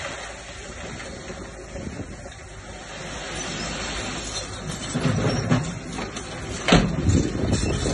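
Diesel engine of heavy earthmoving machinery running steadily. It grows louder about five seconds in, and there is a sharp metallic clank about a second before the end.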